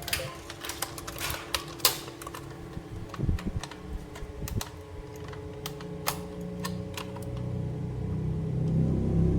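Irregular sharp clicks and taps of plastic toy pieces being handled and fitted together, with a low rumble building over the last two seconds or so.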